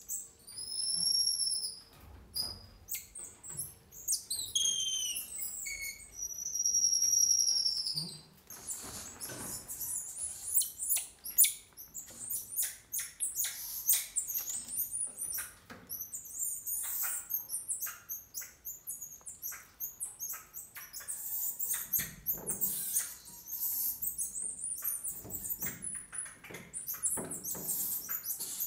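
Emperor tamarins calling: several long, high-pitched whistles, some arching and some falling in pitch, over the first eight seconds or so, then a long run of rapid, short, high chirps and twitters.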